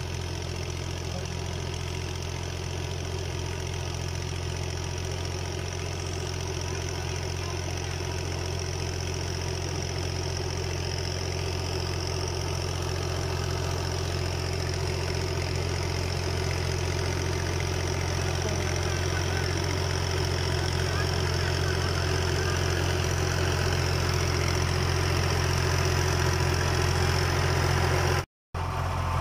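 Farm tractor's diesel engine running steadily, a low hum that grows gradually louder as the tractor drives up close. The sound cuts out for a moment near the end.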